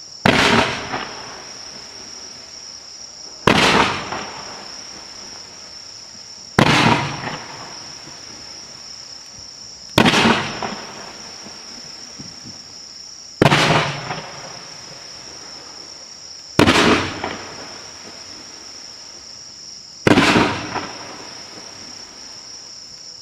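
A firework going off in seven sharp bangs spaced about three seconds apart, each dying away over about a second. Insects trill steadily in the background throughout.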